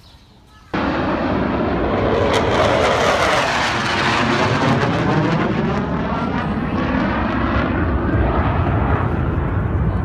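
Airplane flying overhead: a loud, steady rush of engine noise that starts abruptly just under a second in, with a whooshing that slowly shifts in pitch as it passes.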